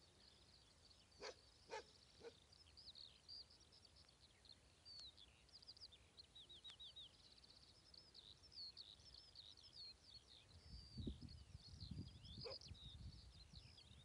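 Several songbirds chirping and trilling steadily. A dog barks faintly three times about a second in, and once more near the end. A low rumble on the microphone starts from about ten seconds in.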